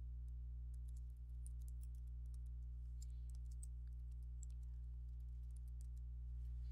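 Faint computer-keyboard typing: a scatter of light, irregular key clicks as a word is typed, over a steady low hum.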